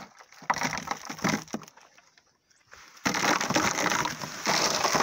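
Dry cottonseed cake flakes pouring from a plastic bucket into a rubber feed trough: a continuous rushing rattle that starts about three seconds in, after a few short knocks and rustles.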